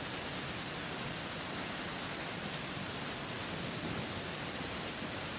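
Steady, even hiss of a thunderstorm's rain and wind, with no thunderclap.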